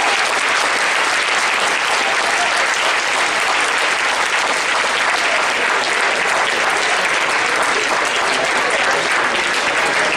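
Audience applauding steadily, sustained clapping from a full room at the end of a speech, with a few voices mixed in.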